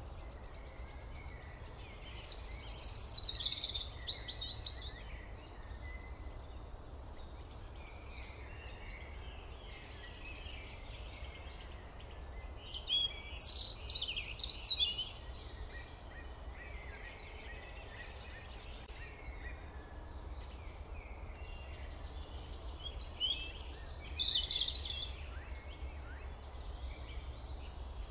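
Birds chirping, in three short spells of quick high calls, over a steady low rumble of background noise.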